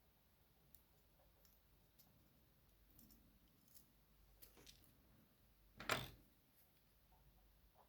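Near silence broken by a few faint clicks and taps of small metal lock parts and tools being handled while a dimple lock's driver pins are taken out, the clearest about six seconds in.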